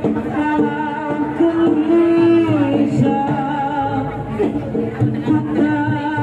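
Live East Javanese jaranan ensemble music: a singer's melody of long held, slightly wavering notes over the troupe's percussion and instrumental accompaniment.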